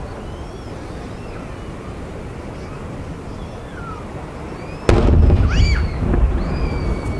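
Aerial fireworks going off. A steady low rumble gives way to one loud sharp boom about five seconds in, followed by two smaller bangs, with faint high whistles gliding up and down.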